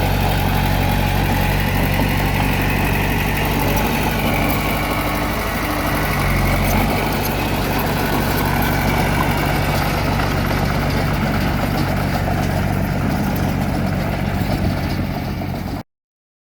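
Bulldozer's diesel engine running steadily, its note shifting about seven seconds in; the sound cuts off suddenly near the end.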